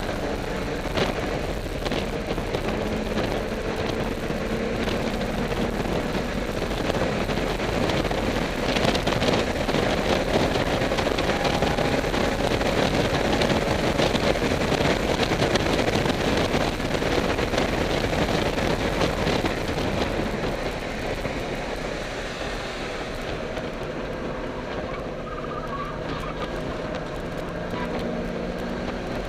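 Heard from inside a BMW's cabin on a race track at speed: the engine running hard under a dense wash of wind and tyre noise, loudest through the middle, then easing off and a little quieter near the end.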